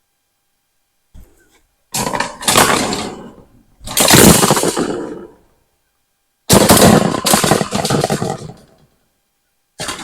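Welded-wire hog panel scraping and rattling against steel T-posts as it is pushed up into an arch, in several loud bursts of a second or two each.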